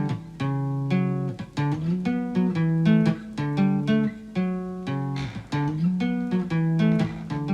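Acoustic guitar strumming a repeating chord pattern in a steady rhythm: the instrumental intro of a song, before the singing comes in.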